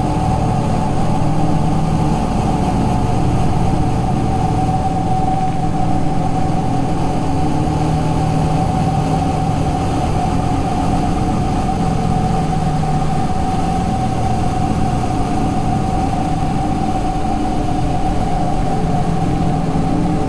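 Experimental electronic noise music: a steady, unbroken low rumbling drone with a held mid-pitched tone on top and no beat, close to the sound of an idling engine.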